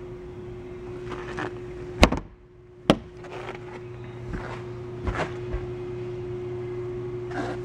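Two sharp thunks about a second apart, the first the loudest, with a few fainter knocks later, over a steady low hum.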